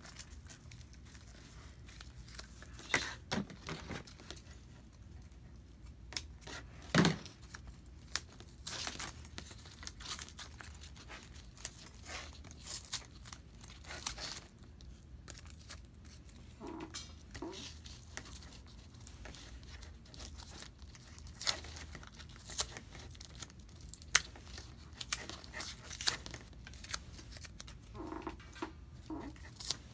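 Blue painter's tape being pulled off, torn and wrapped around straps, with intermittent ripping and crinkling and scattered sharp clicks and taps.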